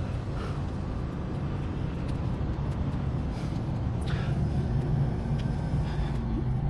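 Steady low rumble of vehicle traffic, with a few faint light clicks.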